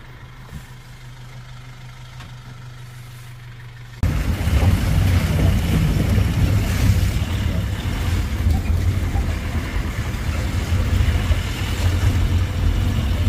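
Safari canter truck running: a quieter steady engine hum, then about four seconds in a sudden, much louder rumble of the moving vehicle with rushing noise.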